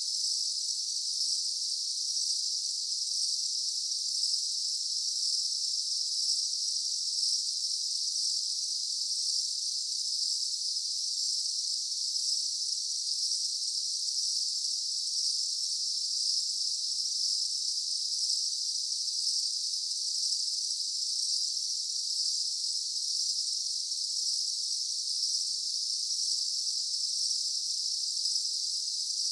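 Daytime summer insect chorus: a dense, steady high-pitched drone of many insects, unbroken and even throughout.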